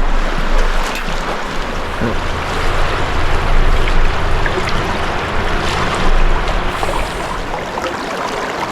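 Rushing water of a river flowing past, an even, steady rush with a low hum underneath.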